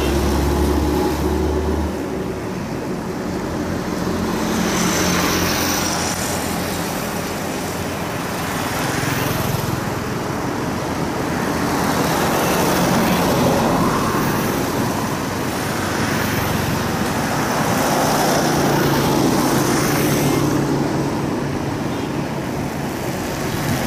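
Road traffic: motor scooters passing one after another, each swelling and fading, over steady road noise. A strong low engine hum cuts off about two seconds in.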